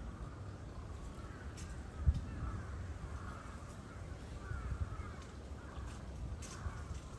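Spotted hyena calling: a run of repeated curving, gliding calls. A low thump about two seconds in.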